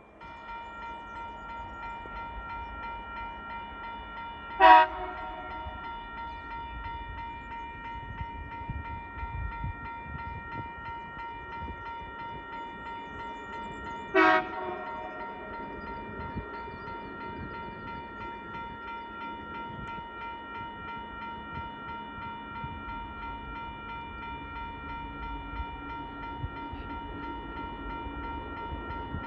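A railway level crossing's electronic warning bell starts up and keeps ringing, steady and high-pitched. Over it come two short blasts, about ten seconds apart, from the horn of the approaching TasRail TR class diesel locomotive; these are the loudest sounds.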